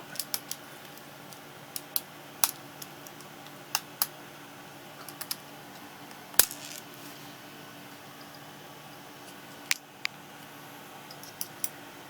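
A scattering of light clicks and taps from a tiny screw and small tools being handled against a laptop's chassis, the sharpest about six seconds in.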